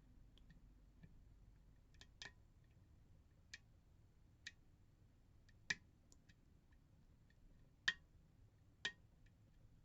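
Faint, scattered clicks of a pick working the pins of an Assa D12 pin-tumbler lock under tension, with a few sharper clicks in the second half as pins set.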